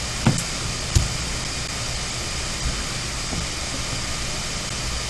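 Steady background hiss with a low hum, and two light taps within the first second.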